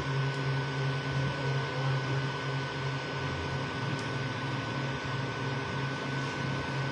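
Creality Ender 3 V2 3D printer running a print: its fans and motors give a steady hum with a constant high tone over a soft whirring hiss.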